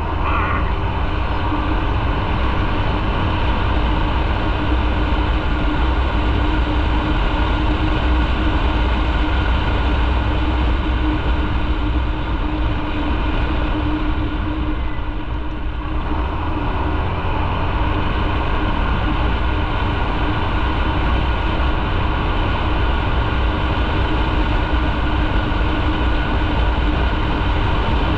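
Motorcycle on the move: the engine runs steadily under a heavy low rumble of wind rush, dipping briefly about halfway through.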